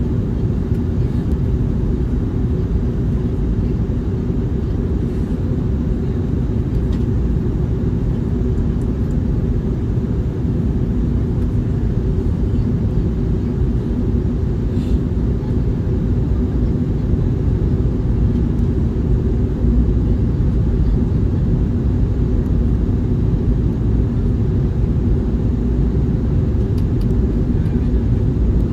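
Steady cabin noise inside an Airbus A321neo in flight: a dense, even low rumble of airflow and its Pratt & Whitney geared turbofan engines, heard from a window seat over the wing.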